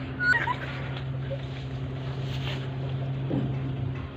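A steady low electrical or mechanical hum, with a short soft chirp from a caged Alexandrine parakeet about a third of a second in.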